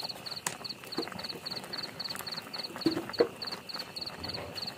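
A cricket chirping steadily in an even, rapid pulsing rhythm. A few soft knocks come from chopsticks stirring greens in a metal pot, the loudest about three seconds in.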